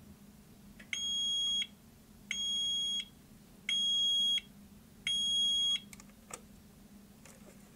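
Built-in beeper of an RKSB-104 'Radian' household dosimeter sounding four even, high-pitched beeps, each about two-thirds of a second long, spaced a little over a second apart. A single light click follows near the end.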